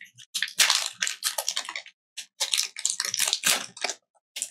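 Foil wrapper of a Pokémon card booster pack crinkling and tearing as it is opened, a run of irregular crackly rustles.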